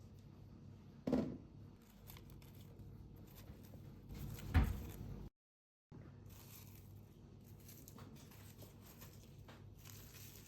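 Quiet household handling noises in a small room, with two sudden louder knocks, one about a second in and a stronger one midway; the sound drops out for half a second just after the second knock.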